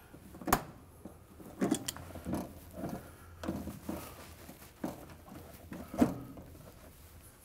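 Slip-joint pliers and hands working a wire spring hose clamp onto a rubber washer hose: a sharp click about half a second in, a louder one near six seconds, and softer knocks and rubbing between.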